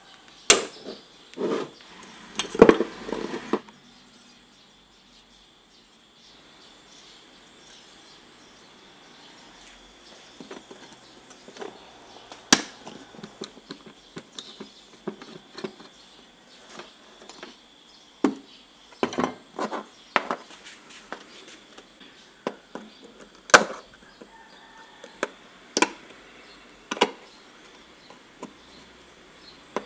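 Hand tools clicking, knocking and scraping on the rusty metal parts of a Hitachi CJ60V jigsaw as it is taken apart: a hex key in the blade clamp, a screwdriver on a base-plate screw, and a pointed tool prying off a small E-clip. A burst of knocks comes in the first few seconds, then sparser single clicks and scrapes.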